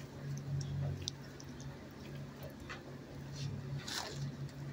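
Animal-shelter kennel room ambience: a low hum that comes and goes, scattered small clicks and ticks, and a short rushing noise about four seconds in.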